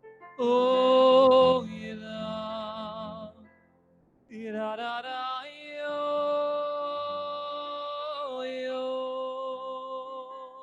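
A man singing a slow, wordless High Holiday melody in long held notes, one phrase, a short break, then a second, longer phrase with a few step changes in pitch.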